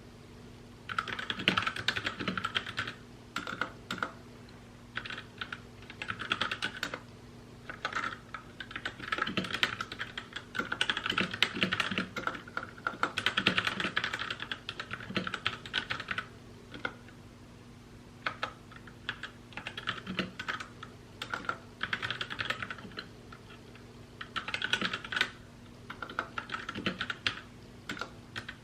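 Typing on a mechanical keyboard: rapid key clicks in bursts of a second or two, broken by short pauses, over a faint steady low hum.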